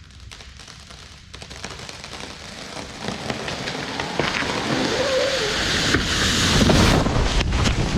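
Large red oak falling: wood cracking and popping and branches rushing through the canopy, building to a heavy crash about seven seconds in, then cutting off sharply near the end.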